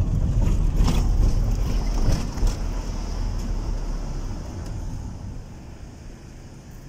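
Low rumble of a moving car with wind buffeting the microphone and a few knocks in the first couple of seconds, dying down about five seconds in.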